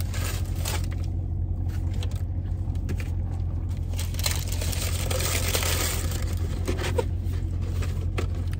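Food being handled and eaten: scraping and crinkling of crispy fried chicken on a paper plate, with a longer rustle in the middle and crunchy bites. Under it runs a steady low hum inside a car's cabin.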